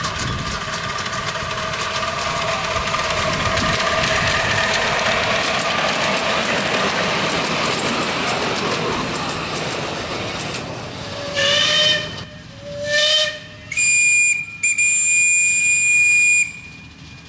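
Miniature steam locomotive passing close with a steady hiss, loudest about four seconds in and fading away, then four whistle blasts from about eleven seconds in: two short lower ones, then two higher ones, the last held for about two seconds.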